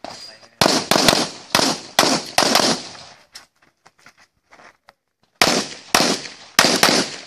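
Handgun fired in rapid strings during an IPSC practical-shooting stage. About six quick shots come in the first few seconds, then a pause of about two and a half seconds as the shooter moves to the next position, then another string of about six shots.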